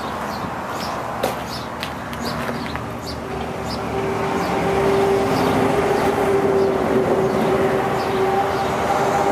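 A steady engine drone, with a steady hum coming up about three seconds in and holding. Birds chirp in the first two seconds.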